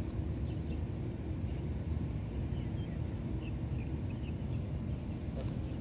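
Steady low rumble of outdoor background noise, with a few faint, short bird chirps scattered through the middle.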